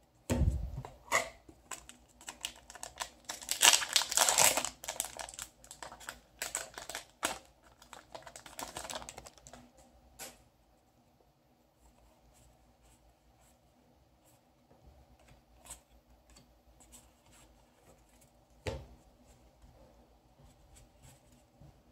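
Yu-Gi-Oh trading cards handled and sorted onto piles by hand: quick irregular clicks and slaps of card stock with rustling, loudest about four seconds in. After about ten seconds it goes mostly quiet with only a few scattered taps.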